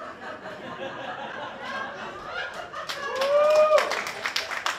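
Club audience laughing at a joke. About three seconds in, the laughter swells, one voice whoops, and scattered clapping starts.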